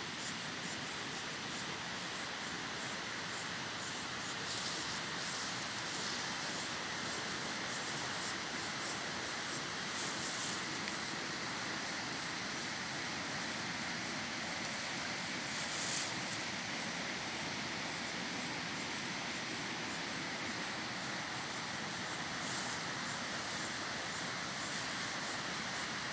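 Water of a small stream running steadily, with a few brief louder hissing surges, the strongest about two-thirds of the way through.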